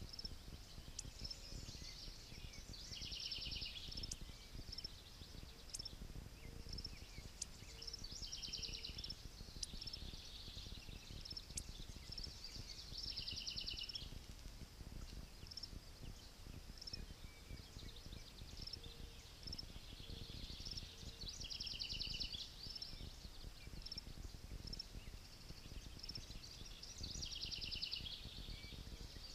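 Rural riverbank ambience: a bird's high, rapid trilling song repeats every few seconds with thin chirps between, over a low rumble of wind on the microphone.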